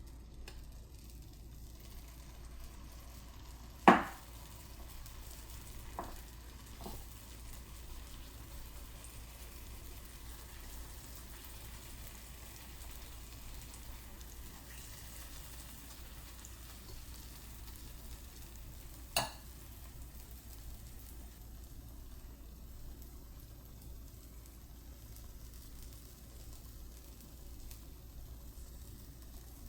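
Sweet potato pancakes sizzling steadily in a frying pan, with a few sharp knocks: the loudest about four seconds in and another near nineteen seconds.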